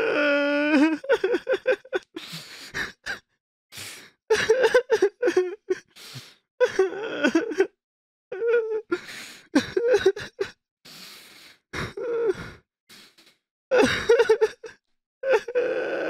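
A person crying: short sobbing, groaning outbursts broken by sharp gasping breaths. A drawn-out wail begins near the end.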